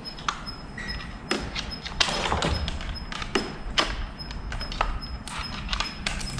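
Handling noises from a chainsaw that is not running: irregular plastic-and-metal clicks and knocks as it is turned over and worked on by hand, with a short rustle about two seconds in.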